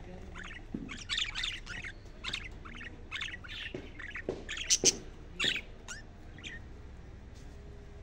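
Budgerigars chirping and squawking in a quick run of short calls, loudest a little before the middle, thinning out over the last second and a half.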